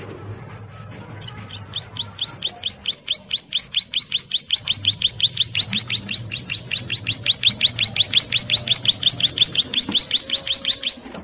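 Ciblek sawah (a prinia) singing its 'ngebren' drill: a long, fast trill of identical downslurred notes, about six a second, starting about a second and a half in, growing louder, and stopping abruptly near the end. A call to a mate.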